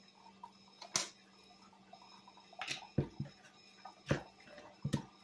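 About five separate knocks and clicks of kitchen items being handled at a counter, spaced irregularly, over a faint steady hum.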